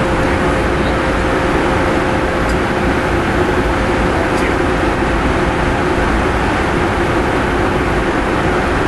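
Steady cockpit noise of a Cessna Citation V Ultra business jet in a rapid descent with the spoilers extended: a constant rush of airflow and twin turbofan engine noise, with two steady hum tones running through it.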